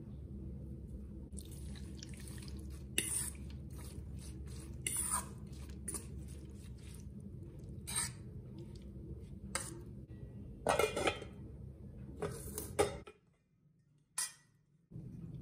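Metal spoon mixing spiced raw chicken pieces in a steel bowl: scattered scrapes and clinks of spoon against bowl over a steady low hum, with a short break near the end.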